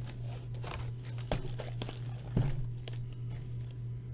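Cardboard trading-card hobby boxes being shuffled and set down on a table: a few light taps and knocks with a little crinkling, the loudest knock about two and a half seconds in, over a steady low hum.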